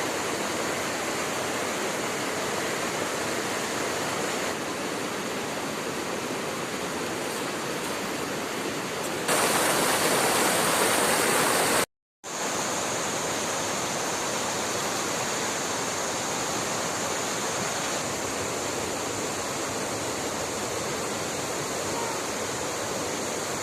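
Steady rush of flowing river water. About ten seconds in it gets louder and brighter for a couple of seconds, then cuts out completely for a moment before the steady rush resumes.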